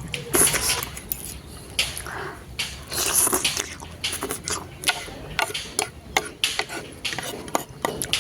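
Close-up eating sounds of a bowl of noodles: wet chewing and mouth noises, with frequent small clicks of cutlery against the dish. There are louder noisy bursts about half a second in and about three seconds in.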